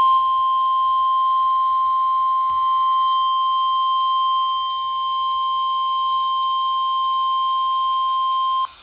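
NOAA Weather Radio 1050 Hz warning alarm tone from a RadioShack 12-254 weather radio's speaker: one steady high-pitched beep held for about nine seconds, cutting off near the end. It signals that a warning broadcast, here a special marine warning, follows.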